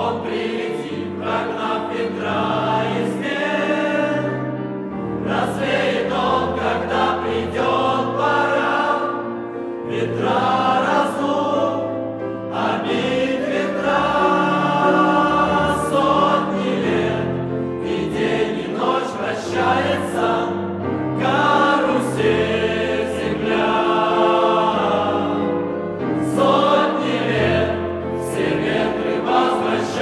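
Mixed choir of men's and women's voices singing in parts, picked up by stage microphones and amplified.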